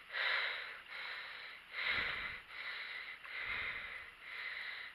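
A person breathing heavily close to the microphone, a hissing breath about every second.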